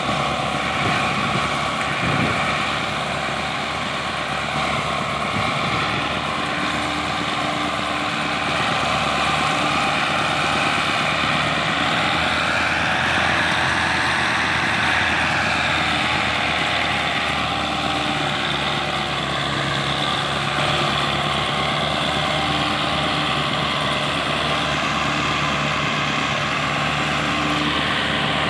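Diesel tractor engines running steadily under load while hauling a heavily loaded sugarcane trolley, with a brief swell about halfway through.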